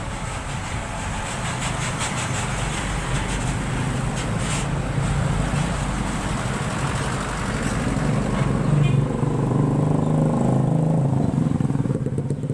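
A motorcycle engine running close by, getting louder over the second half, over general street noise.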